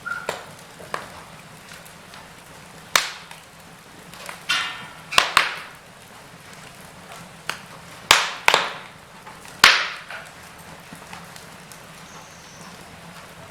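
Wood fire crackling in a fireplace: about ten irregular sharp pops and snaps over a faint steady hiss, with a brief hiss about four and a half seconds in.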